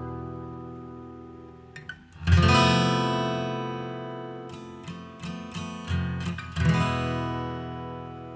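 Background music: acoustic guitar strumming chords that ring out and slowly fade, two big strums with a run of picked notes between them.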